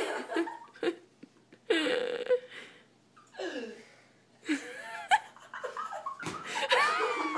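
Young women laughing and giggling in several short bursts, with breathy laughs between near-silent gaps.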